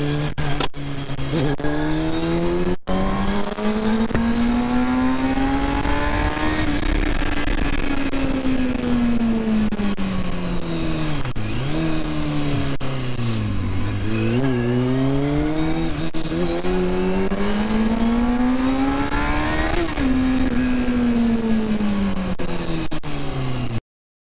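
Sport motorcycle engine heard from the rider's helmet camera, its pitch rising and falling repeatedly as the bike accelerates through the gears and slows again. The sound cuts off suddenly near the end.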